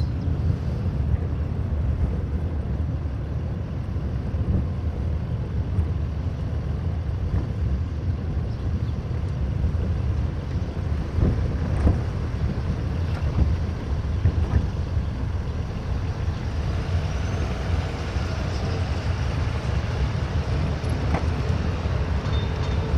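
Mango velomobile rolling along a paved street: a steady low rumble of tyres and body on the road, mixed with wind on the microphone, with a few small knocks and clicks partway through.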